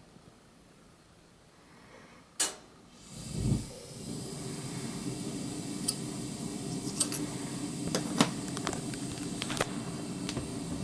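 Handling noise as the camera is taken off the microscope eyepiece: a sharp click a little over two seconds in, a dull thump about a second later, then a steady low hum with scattered small clicks and taps.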